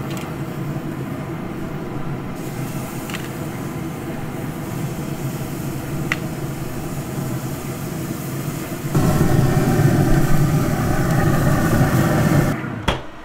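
Z Grills 700 series pellet grill running at its high setting, a steady noise of its fan and fire pot that gets louder about nine seconds in. Two faint clicks of tongs on the wire rack come as the chops are laid on.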